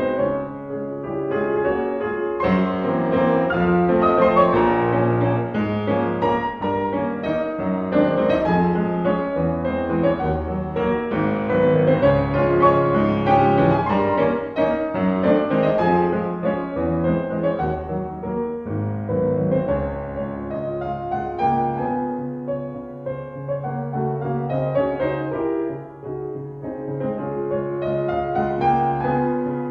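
Background instrumental piano music, a gentle flow of notes.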